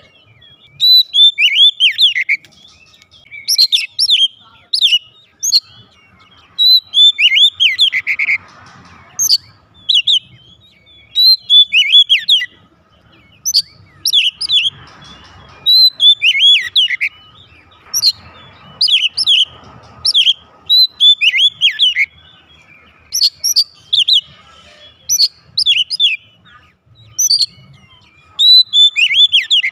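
Oriental magpie-robin singing loudly in rapid phrases of sharp whistled notes, many sweeping downward, coming in bursts one after another.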